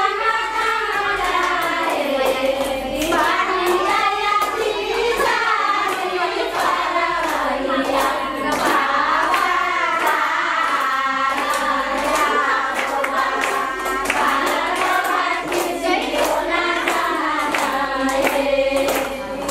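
A group of people singing together, with regular hand-clapping keeping the beat.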